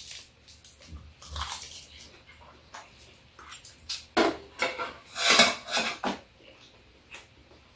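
Stainless steel spoons and chopsticks clinking and scraping against metal bowls and a metal serving tray as two people eat, with a run of louder clatters about four to six seconds in.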